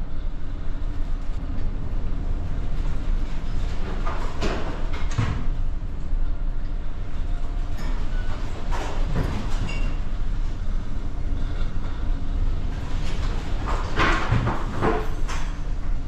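Heard from inside a tanker's bridge in heavy seas: a steady low rumble from the ship, with louder rushing, rattling surges three or four times, the strongest near the end.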